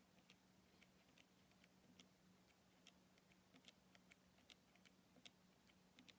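Faint clicks of Casio fx-83GT PLUS calculator keys being pressed in quick succession, about two or three a second, as numbers and equals are keyed in for data entry. A faint steady low hum lies underneath.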